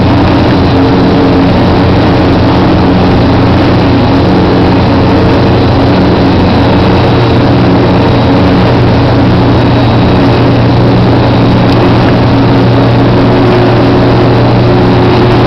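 Large motor-driven plant machinery running steadily: a loud, constant hum with several held low tones and a faint high whine.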